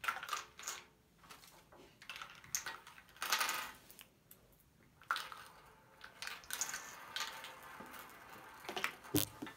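Irregular handling noises of small plastic slime tubs being set down and knocked together on a glass tabletop, with rustling of a foil toy packet. A louder rustle comes about three seconds in and a sharp click near the end.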